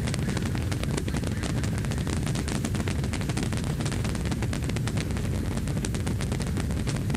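Saturn V rocket's five F-1 engines heard from the spectator area as the rocket climbs away: a steady deep rumble laced with dense, rapid crackling.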